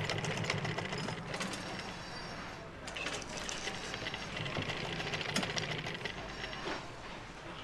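Sewing machine running, stitching a neck facing onto cotton fabric, with a short easing off about three seconds in before it picks up again.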